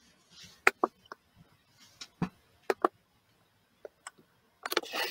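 Sharp clicks of a computer mouse and keyboard, in ones and pairs spaced over a few seconds, then a quick clattering run of clicks near the end.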